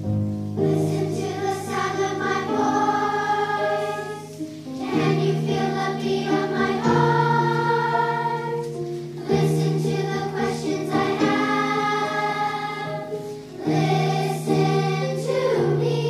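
An elementary school children's choir singing a song together, in phrases of about four to five seconds with brief breaks between them.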